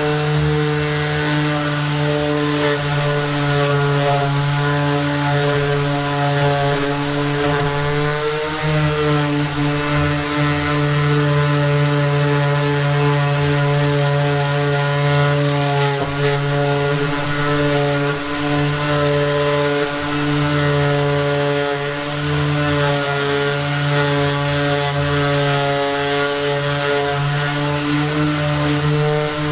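Makita cordless random orbital sander running steadily with a strong hum, its pad sanding a plywood board. The pitch wavers briefly about eight seconds in.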